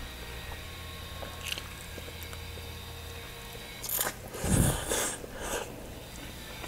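Close-up eating sounds: a man bites into a chicken drumstick, tears the meat off and chews it. A loud run of bites and mouth noises starts about four seconds in and lasts roughly a second and a half, over a low steady hum.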